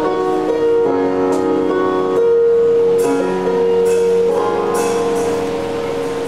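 Soft instrumental worship music: held chords with one long sustained note, the chords changing every second or two.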